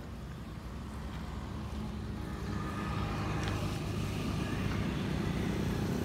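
A motor vehicle's engine running with a low rumble that grows steadily louder.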